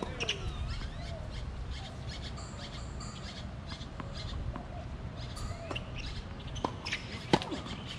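Birds chirping and calling around the court, with a tennis ball bounced on the hard court before a serve and the racket striking the ball on the serve near the end, a single sharp pop that is the loudest sound.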